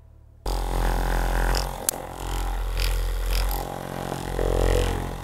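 Handheld percussion massage gun running against a patient's upper back: a steady low buzzing drone that starts abruptly about half a second in, its level swelling and dipping a little as it is worked over the back.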